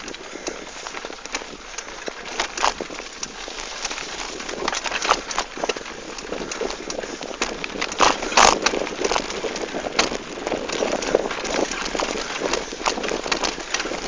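Mountain bike riding over a bumpy, overgrown grass trail: a steady rustle of tyres and brushing vegetation with many small rattling clicks, and a louder clatter of knocks about eight seconds in.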